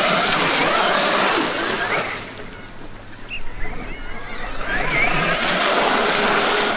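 Traxxas X-Maxx RC monster truck driving, its brushless electric motor whining up and down in pitch over the noise of the tyres on the ground. It is loud in two long stretches with a dip about halfway.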